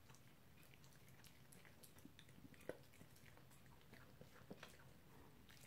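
Faint, scattered clicks of a dog chewing a dental chew, the clearest about halfway through, against near silence.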